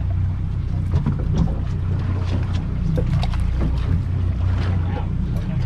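A boat's engine running steadily as a low hum, with wind and water noise over it.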